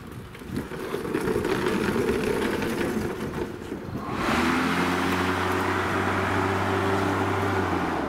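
Cordless 40-volt electric lawn mower running while pushed along. About four seconds in it goes onto the grass and starts cutting, adding a steady hum and a broad hiss of grass being cut.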